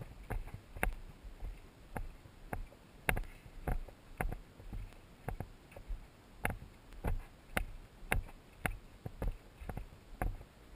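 A hiker's footsteps on a dry dirt trail at an even walking pace, about two steps a second.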